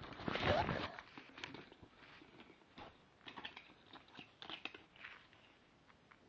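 Packaging being handled: a burst of rustling and crinkling in the first second, then scattered light rustles and small knocks.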